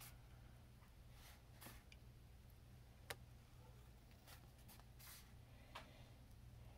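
Faint, scattered snips of scissors cutting through a sheet of craft foam, a handful of separate cuts, over a low steady hum.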